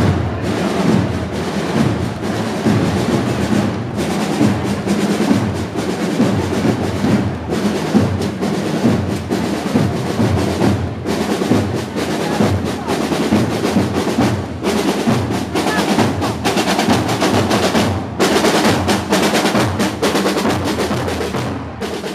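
Parade drums, snares and bass drums, beating a steady marching rhythm.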